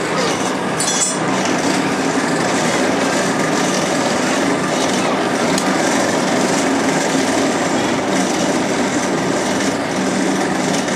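Hand-cranked forge blower running steadily, a continuous whirring rush of air feeding the charcoal fire. A short metallic clink about a second in.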